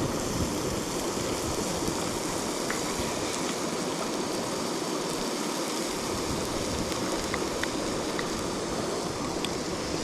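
A mountain river running steadily, with a few faint ticks over it.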